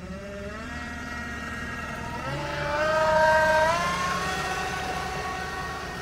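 DIY 10 kW, 48-volt electric boat motor whining as it spins up under throttle, its pitch rising in steps over the first few seconds, then holding steady and growing fainter as the boat moves off, with water churning from the propeller.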